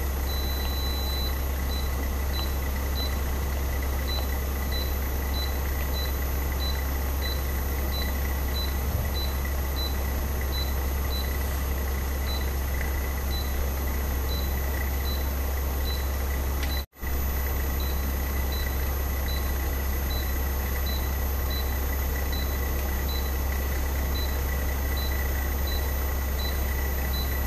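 Daikin inverter air conditioner's compressor and outdoor DC fan motor running steadily on a test bench with a low hum, the compressor running in reverse because its U-V-W phase leads are swapped. Faint short high pips repeat about twice a second throughout, and the sound drops out for a moment about halfway through.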